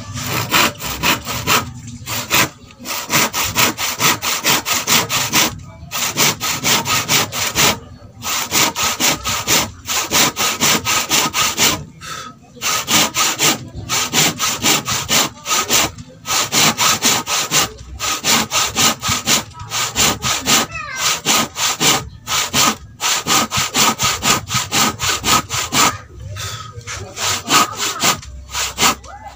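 Hand saw cutting through a bark-edged length of wood, in quick back-and-forth strokes with short pauses every couple of seconds.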